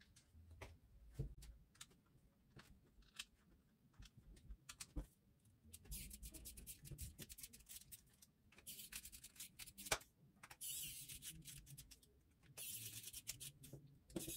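Faint handling of a cordless soldering iron's plastic housing, with scattered small clicks and knocks. From about six seconds in come several short scratchy, rasping stretches as a precision screwdriver turns screws into the handle.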